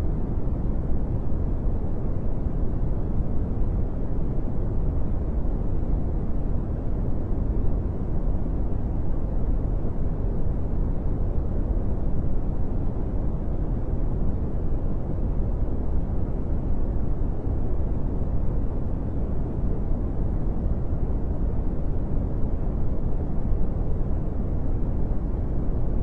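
Brown noise: a steady, deep, even rush, loudest in the low end and falling away toward the highs, with no changes.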